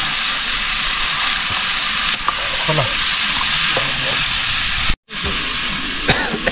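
Food sizzling and frying in a metal pan over an open wood fire, with a spoon stirring it. The sound cuts out for an instant about five seconds in.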